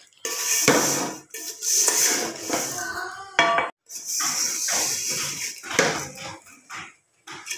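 A wooden spatula stirs handmade vermicelli as it toasts in oil in a large metal degchi, in repeated strokes of scraping and rustling against the pot.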